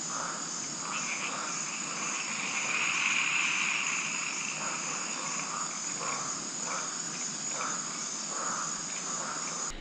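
Tropical rainforest insects trilling steadily in several high pitches, with a louder buzz swelling about three seconds in and short calls repeating at irregular intervals below them. The sound cuts off suddenly just before the end.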